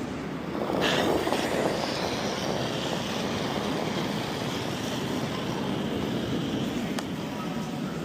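Granite curling stone sliding down the pebbled ice with a steady rumble that swells about a second in and then holds.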